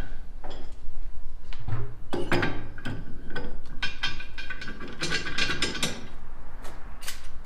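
Wheel-shop work noise: a busy run of sharp metallic clanks and knocks, some of them ringing.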